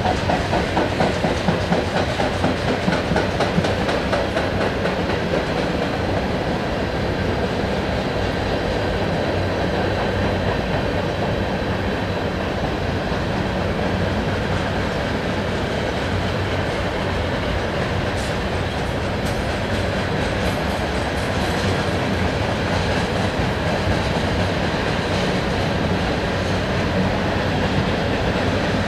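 Freight cars of a slow-moving freight train rolling past: a steady rumble of steel wheels on rail, with a rhythmic clickety-clack of wheels over rail joints in the first few seconds.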